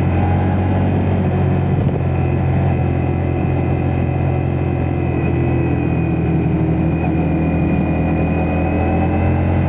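Ducati Multistrada V4S's V4 engine running at a steady pace, its pitch holding nearly level with only slight drifts.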